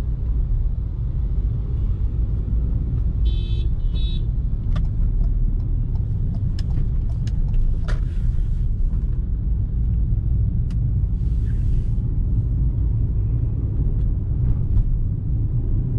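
Car driving in city traffic, heard from inside the cabin: a steady low rumble of engine and road noise. A horn sounds twice briefly a little past three seconds in.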